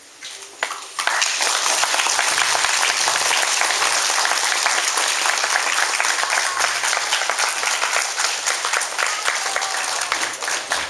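Audience applauding, breaking out suddenly about a second in and carrying on steadily as dense clapping.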